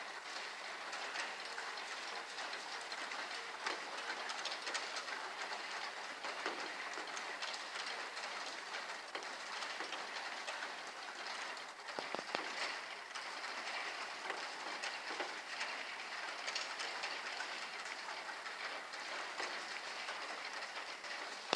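Heavy rain falling steadily, with many small drop hits on hard surfaces.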